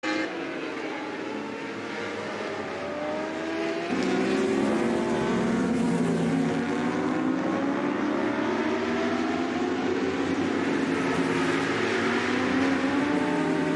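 Racing superbike engines at high revs, several at once, as the Suzuki GSX-R1000 and Yamaha YZF-R1 endurance bikes race wheel to wheel through corners. The engine notes rise and fall in pitch through gear changes. About four seconds in the sound gets louder and fuller.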